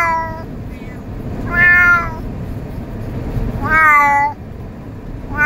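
Cat shut in a pet carrier meowing over and over, one long drawn-out meow about every two seconds, each curving up and then easing down in pitch.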